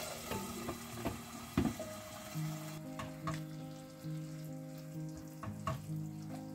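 Diced chicken sizzling in hot oil in a non-stick frying pan. A sharp knock about a second and a half in comes as the glass lid is lifted off, and then a silicone spatula stirs and taps against the pan. The sizzle thins after about three seconds, with soft background music underneath.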